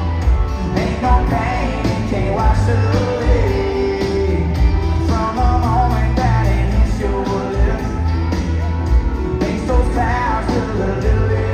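Live country-pop band playing with sung vocals over acoustic and electric guitars, drums and keyboards, with a steady beat.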